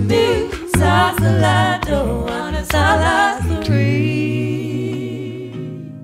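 Background music: unaccompanied gospel singing, the voices moving through a phrase and then holding one long final chord that fades out over the last couple of seconds.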